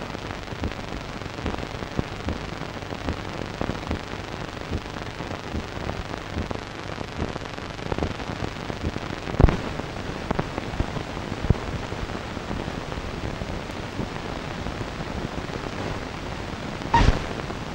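Steady hiss with scattered crackles and clicks from a worn film print's soundtrack, with a louder pop about halfway through and another near the end.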